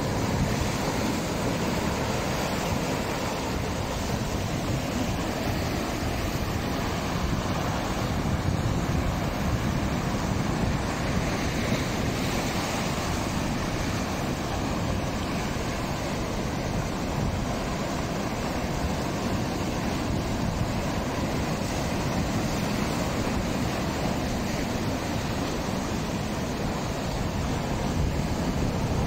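Rough sea surf breaking and washing over rocks: a steady rush of churning water.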